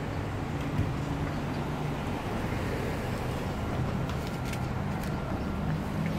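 Steady street traffic noise, with the low hum of a motor vehicle's engine running close by that grows a little louder near the end.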